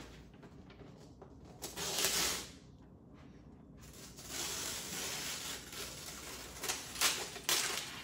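Wrapping paper being torn and crinkled off a gift box: a short rip about two seconds in, then a longer stretch of tearing and rustling from about four seconds on.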